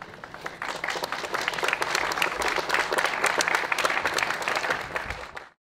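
Applause from a group of people: scattered claps that thicken into dense, steady clapping, then cut off abruptly near the end.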